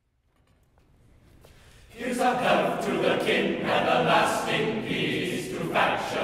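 Men's choir of low voices singing a cappella, coming in together about two seconds in after a faint hush.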